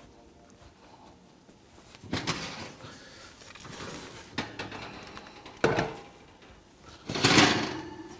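Oven door opened and a baking dish handled on the metal oven rack: a few separate clanks and knocks of metal, the loudest a longer scraping clatter near the end.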